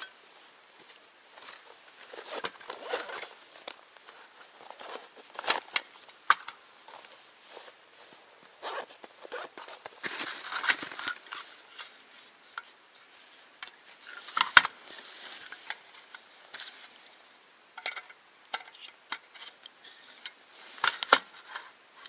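Metal camping cookware, a gas canister and a portable stove being handled and set out on a table: scattered clinks and clicks with bouts of rustling. One sharp click about two-thirds of the way in is the loudest, and a quick run of clicks near the end comes as a metal pan is set on the stove.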